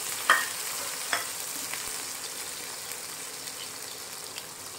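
Sliced onions, ginger and garlic sizzling in hot mustard oil in a nonstick frying pan while a wooden spatula stirs them, with two sharp clicks of the spatula against the pan in the first second or so. The sizzle slowly dies down.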